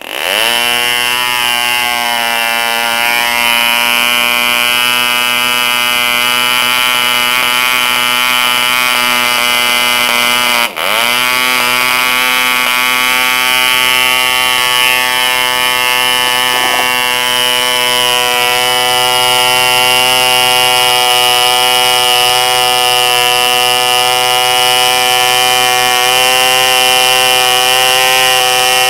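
An ED Bee 1cc model diesel engine from about 1956 catches and runs at high speed, driving its propeller with a steady, high-pitched buzz. About ten seconds in it briefly stumbles, its revs dipping and recovering at once.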